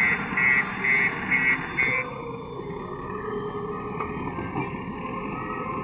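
JCB backhoe loader's diesel engine running under work, with its reversing alarm beeping about twice a second until it stops about two seconds in.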